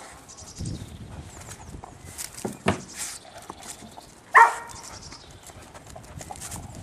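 Spaniel search dog sniffing and scrabbling among loose bricks, with a run of quick snuffles and light clicks of claws on stone. One short, sharp yelp about four and a half seconds in is the loudest sound.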